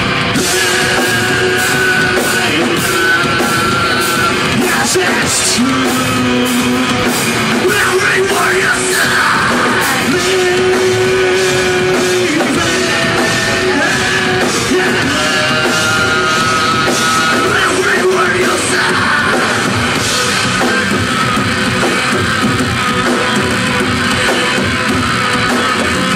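Rock band playing live: distorted electric guitars, bass and a drum kit, loud and steady, with long held guitar notes.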